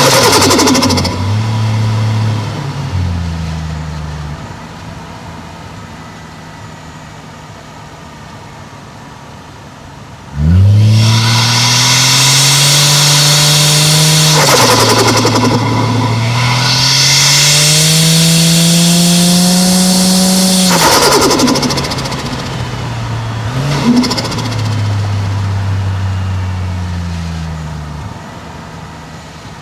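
Toyota 1JZ-GTE turbocharged straight-six pulling hard twice through a gear change, the revs climbing, dropping at the upshift, then climbing again. Each time the throttle lifts there is a hissing, fluttering burst of turbo flutter. The engine goes quiet while coasting before the pull, and near the end the revs step down, with one sharp exhaust pop.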